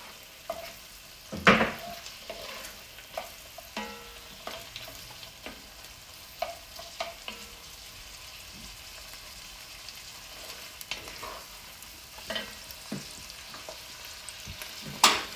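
Beef cubes and onions sizzling as they sear in an enamelled cast-iron Staub cocotte, stirred with a wooden spoon that scrapes and clicks against the pot. Two louder knocks stand out, about one and a half seconds in and near the end.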